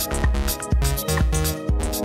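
House music with a steady dance beat, hi-hat-like strikes about every quarter second over a continuous synth and bass backing.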